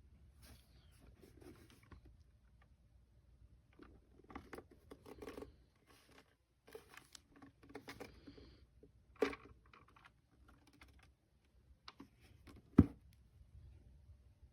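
Handling noises: scattered rustles and small clicks, with a sharp knock about nine seconds in and a louder one near the end.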